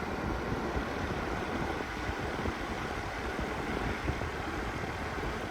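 Unitedstar 24-inch high-speed ceiling fan running at a high speed setting: a steady rush of moving air over a low rumble.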